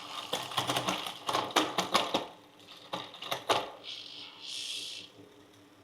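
Road bike drivetrain clicking and clattering in quick, irregular strokes for about three and a half seconds, as the Shimano Dura-Ace Di2 gears are shifted. A brief soft hiss follows near the end.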